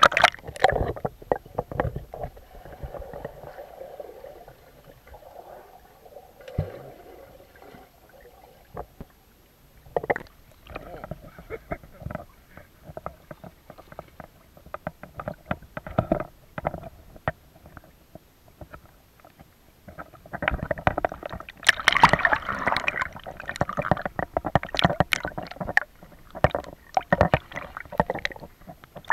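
Swimming-pool water splashing and lapping right at the microphone, with a swimmer's strokes; the splashing gets louder and busier about three quarters of the way through.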